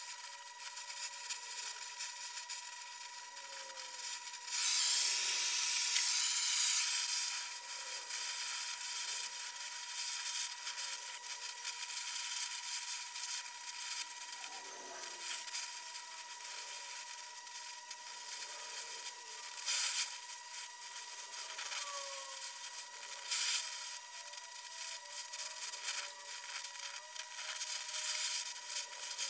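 Gas welding torch flame hissing steadily while brazing rod is melted into the cracks of a cast-iron lathe tailstock. The hiss swells louder for about two and a half seconds a few seconds in, and surges briefly twice more later on.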